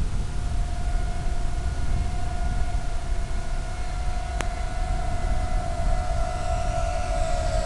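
Electric motor and propeller of an FPV model plane running at about three-quarters throttle in fast level flight: a steady whine over heavy low rushing noise of air on the onboard microphone. The pitch sags slightly near the end, and there is one short click about four seconds in.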